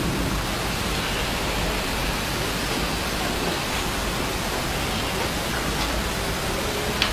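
Steady hiss of background noise, with a single click near the end.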